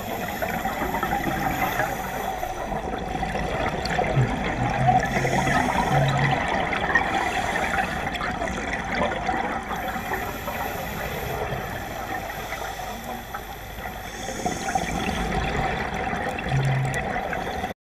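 Scuba diving underwater: regulator exhalations bubbling and gurgling in bursts every few seconds over a steady underwater hiss. The sound cuts off suddenly near the end.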